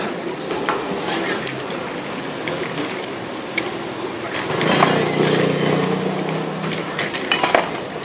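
Spray-paint artist at work: aerosol spray cans hissing and clinking against each other and against metal tools, in a series of short sharp clicks. A low steady hum swells up about halfway through and fades near the end.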